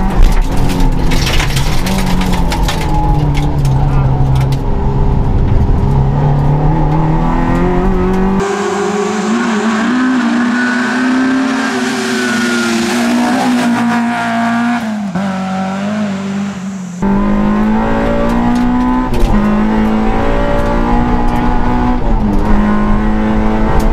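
Suzuki Swift rally car engine at high revs under hard driving, heard inside the cabin, its pitch rising and dropping as it shifts gears. For about eight seconds in the middle it is heard from the roadside instead, revving as the car comes up and passes.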